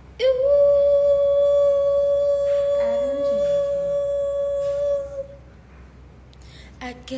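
A woman's voice holding one long sung note at a steady pitch for about five seconds, then fading out.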